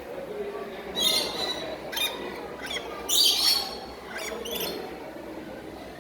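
Parrots squawking: a series of about five harsh, high calls roughly a second apart, the loudest about three seconds in.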